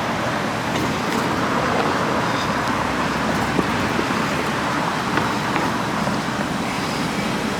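Steady road traffic noise: an even, unbroken hiss of passing vehicles and tyres.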